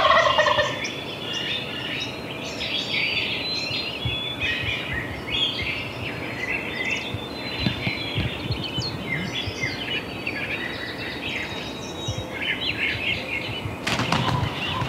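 Songbirds chirping and singing in a dawn chorus, many short overlapping calls. In the first moment comes the tail end of a wild Merriam's turkey gobbling from the roost, and a short sharp noise comes near the end.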